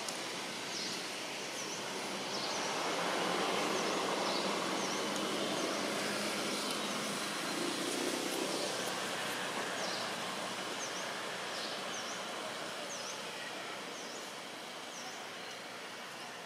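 Outdoor ambience: a steady rushing background noise that swells a few seconds in and eases off toward the end, with short high chirps repeating about once a second throughout.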